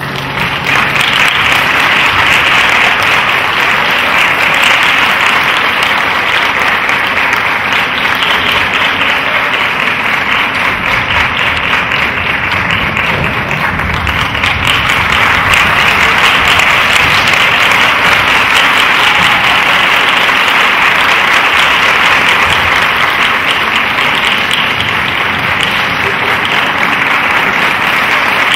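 Audience applauding, loud and sustained, swelling up in the first second and then holding steady.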